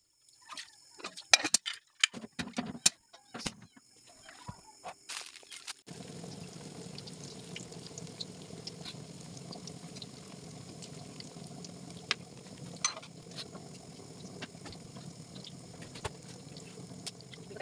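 Rice being washed by hand in a metal pot of water: scattered splashes and clicks of the grains being swished. About six seconds in it changes suddenly to food frying in hot oil in a wok, a steady sizzle with occasional pops.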